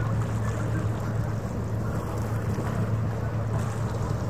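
A boat's engine drones steadily across the water in a constant low hum, with a rushing noise of wind on the microphone.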